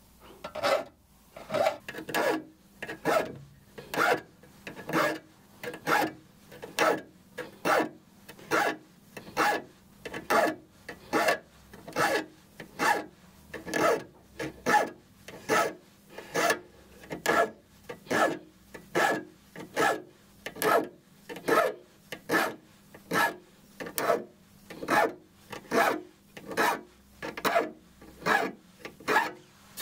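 Hand file rasping across the steel teeth of a Japanese ryoba pull saw in short, even strokes, one after another in a steady rhythm, as the teeth are resharpened one by one.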